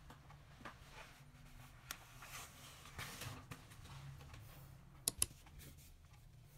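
Faint scattered clicks and taps of handling, then two sharp clicks close together about five seconds in, as the iPhone 6 Plus is picked up off the desk.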